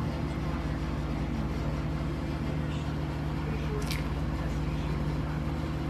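A steady low machine hum, and about four seconds in a brief crunch as a fried chicken tender is bitten.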